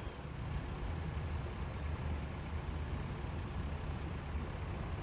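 Small fishing boat's engine running at idle: a steady low rumble, with wind on the microphone.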